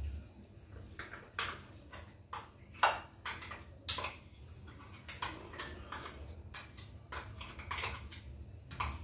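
Hot cooking oil on a gas stove crackling and popping: scattered, irregular sharp pops, a few at a time, over a low steady hum.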